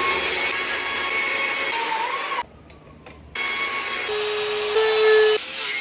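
A Stihl chainsaw cuts into a wooden carving. About two and a half seconds in there is a brief break, and then a different hand-held power carving tool runs with a steady whine that rises a little in pitch and level near the end.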